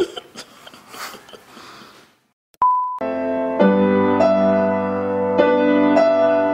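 A short single-pitch beep, then slow, sustained electric-piano chords over a low bass, the harmony shifting every second or so.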